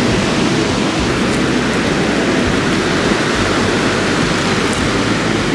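Heavy ocean surf: a steady, loud rush of big waves breaking on the beach.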